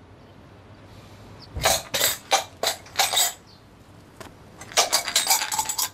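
Old copper coins being shaken and rattled, clinking in a few separate shakes and then in a quicker run near the end.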